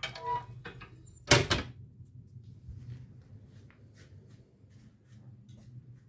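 The firebox door of a brick stove-fireplace is shut with one loud clunk about a second in, followed by faint scattered crackles of wood burning inside.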